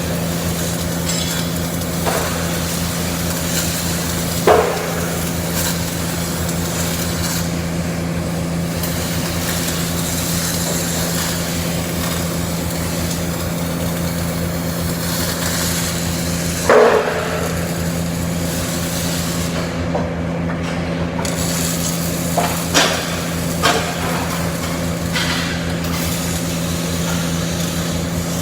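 CO2 (MIG) welding arc running steadily, a constant buzzing crackle with a steady hum under it, broken by a few sharp knocks about four seconds in, around seventeen seconds in, and three more near the end.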